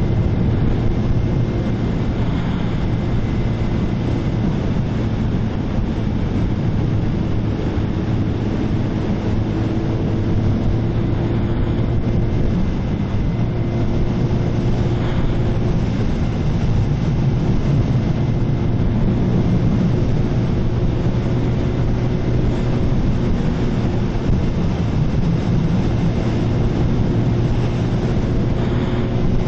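Motorcycle engine running steadily at cruising speed, with wind noise over the microphone.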